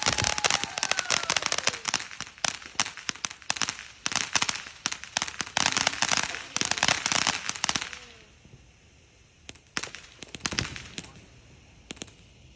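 Consumer firework crackling: a dense run of rapid pops for about eight seconds, then a few scattered single pops.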